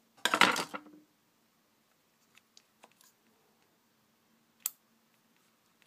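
Close handling sounds at a worktop: a brief loud scrape or rustle near the start, then a few light clicks and one sharper tick as fingers and a small plastic medicine syringe work liquid medication into slices of sausage.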